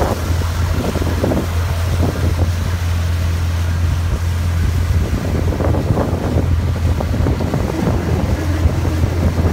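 Boat engine running with a steady low drone, with wind buffeting the phone's microphone.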